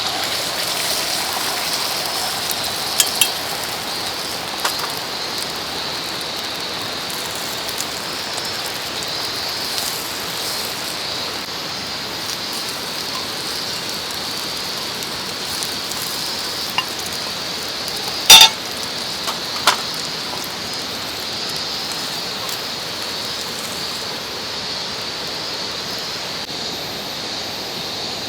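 Steady rushing of a mountain stream, with a few sharp clinks of metal camp gear. The loudest clink comes about eighteen seconds in and rings briefly.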